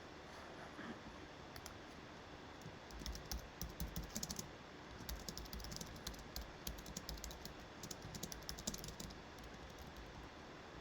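Quick, light clicks and taps in irregular bursts, busiest from about three to nine seconds in, with soft low thuds under them.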